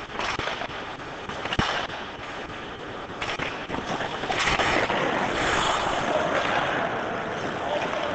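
Ice hockey play: sharp clacks of sticks on the puck and ice, the loudest about a second and a half in, with skate blades scraping on the ice. From about four seconds in, a steady scraping hiss builds and holds.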